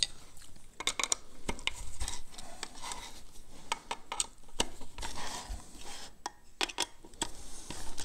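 Irregular small metallic clicks, taps and scrapes as the aluminium-and-steel body of a Pharos hand coffee grinder is handled on the bench and a screwdriver is worked at its screws.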